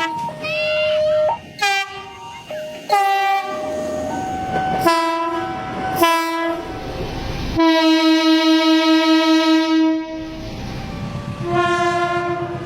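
Indonesian locomotive horns sounding a series of blasts, several short ones and one long, wavering blast of about two and a half seconds, with train rolling noise between them. These are semboyan 35 horn signals, the driver's sign that the train is about to depart.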